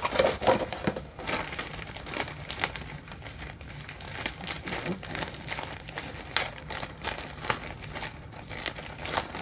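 Packaging of a Glov makeup remover mitt crinkling and rustling in the hands as it is unwrapped, with irregular crackles.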